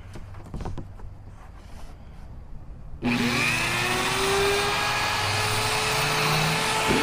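A few light handling knocks, then about three seconds in a Dremel rotary tool switches on, its whine rising in pitch and settling steady, with a cut-off disc grinding into a rusted steel screw head.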